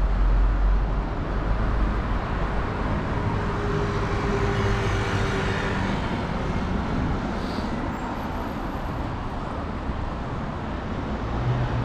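City street traffic: a steady noise of cars and buses, with a deep rumble in the first second or so that then eases off.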